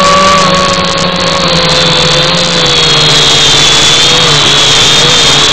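Zoopa Q420 quadcopter drone's electric motors and propellers running, a steady whine that wavers and sinks slightly in pitch over a loud rushing noise.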